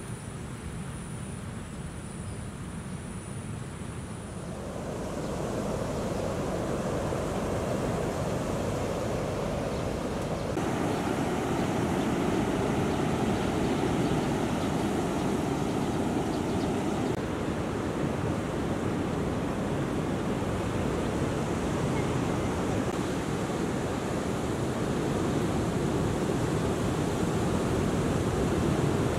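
Ocean surf: a steady rushing wash of breaking waves. It swells up about five seconds in and stays loud, stepping up in level once or twice along the way.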